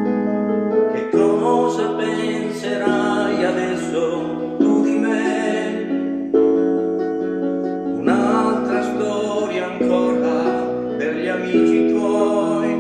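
A karaoke-style backing track with keyboard and plucked guitar, and a man singing along into a handheld microphone.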